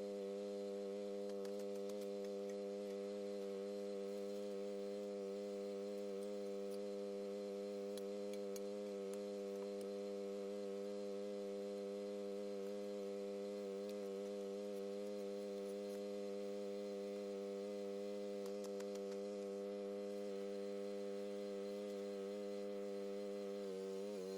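Mini skid steer engine running at a steady speed, a constant droning hum with no changes in pitch.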